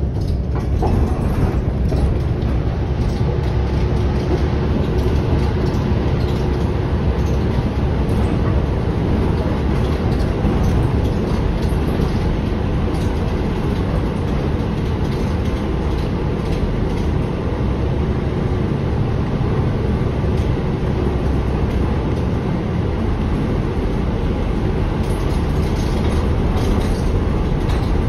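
Inside a 2023 New Flyer XDE40 diesel-electric hybrid bus on the move: steady drivetrain rumble mixed with road and tyre noise.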